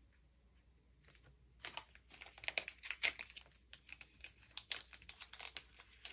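Small plastic packaging crinkling and rustling as it is handled, a dense run of crisp crackles starting about a second and a half in.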